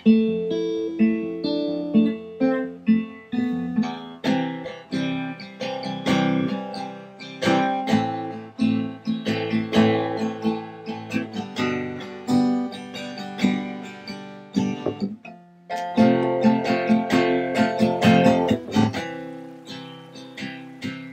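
Background music on acoustic guitar: a steady run of plucked notes that fades out at the very end.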